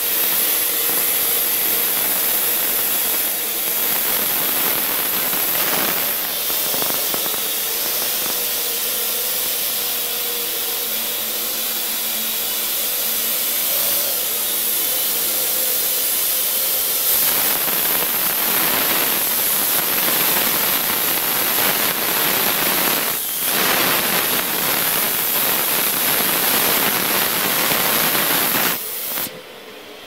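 Parrot AR.Drone quadcopter's four rotors running steadily as it hovers and flies, a continuous whirring hiss with a high whine over it. Near the end the sound drops away suddenly.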